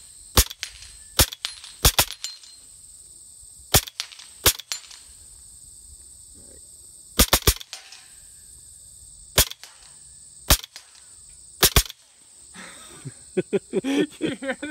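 LCS SK-19 PCP air rifle firing single shots and short bursts: about a dozen sharp cracks at uneven spacing, with a close pair about two seconds in and a quick three-shot burst about seven seconds in.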